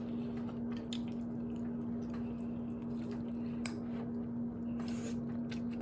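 Two people slurping and chewing ramen noodles eaten with chopsticks: scattered wet slurps, smacks and small clicks over a steady hum.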